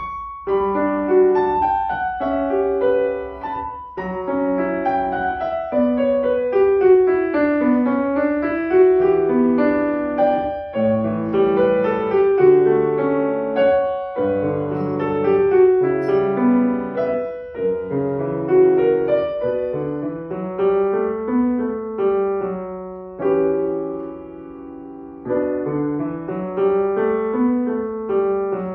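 Solo piano piece played on a Boston grand piano: a steady run of struck notes and chords, with a brief softer passage a few seconds before the end before the playing picks up again.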